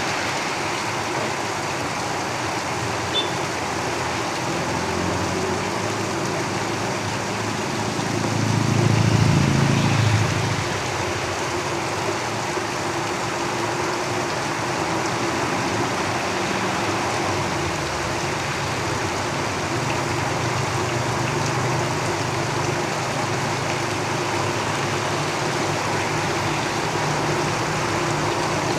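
Steady rain drumming on a tin roof, with road vehicles rumbling past on the main road outside; one passes loudest, swelling and fading about eight to ten seconds in.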